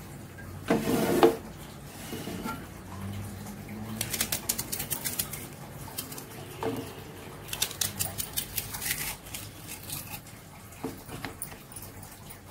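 A knife slicing an onion into thin pieces: two runs of quick, even cuts, with a short loud scrape about a second in.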